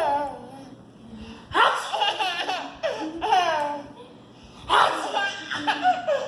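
A person laughing hard in two long bouts, about a second and a half in and about five seconds in, each made of quick syllables falling in pitch.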